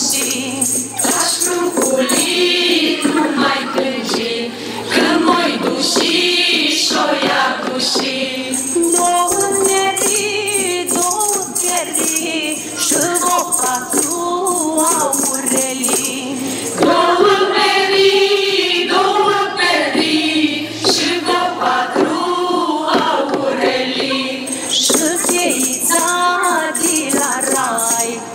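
Mixed choir of men and women singing a Romanian Christmas carol (colindă) together, with jingling shaken percussion keeping time through parts of it.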